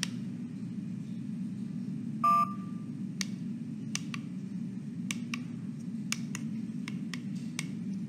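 Wireless motion-sensor doorbell receiver giving one short beep about two seconds in, the signal that holding its volume button has set the volume. A series of about nine sharp plastic button clicks follows as its song key is pressed, over a steady low hum.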